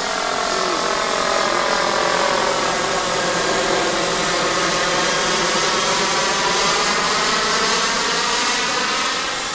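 Turbine-powered RC scale SA 315B Lama helicopter flying past: a steady high turbine whine over a stack of rotor and engine tones that dip in pitch and climb back, louder in the middle.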